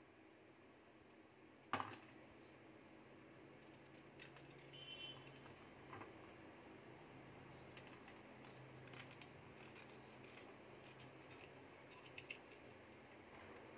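Faint clicks and scrapes of a small kitchen knife cutting raw green papaya and scraping out its seeds over a steel plate. One sharper click comes near two seconds in.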